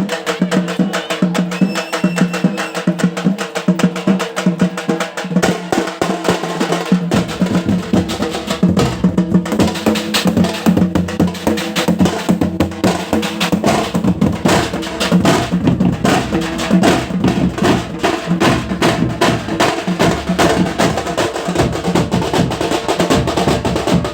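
Drum-heavy music: fast, dense drumming over steady held tones, with a deeper bass part coming in about seven seconds in.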